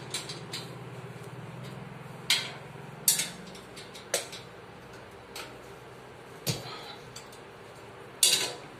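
Spanners clinking and knocking against the cast-iron treadle sewing machine stand as its nuts and bolts are tightened: about eight sharp metal clanks at uneven intervals, over a faint low hum in the first few seconds.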